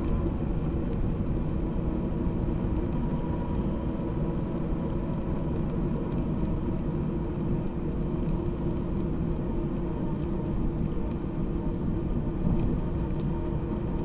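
Steady low rumble of wind and wheels rolling along a paved path while moving, with a faint steady hum underneath.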